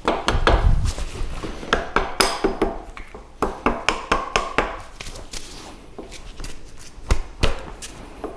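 A soft-faced mallet with a wooden handle tapping a cast-iron shaft housing assembly into place on a surface grinder's saddle, in a series of irregular taps. The tapping drives a stiff-fitting part home.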